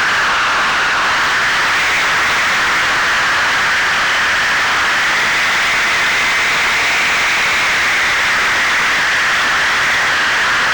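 Onboard audio from a fixed-wing FPV model in flight: a steady rush of wind and propeller noise, with a broad whine that slowly rises and falls in pitch.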